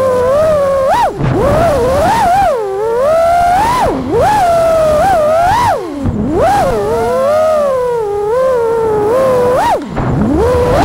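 FPV freestyle quadcopter's motors and propellers whining, the pitch swooping up and down constantly with the throttle. The whine dips sharply low and quieter for a moment about four, six and ten seconds in.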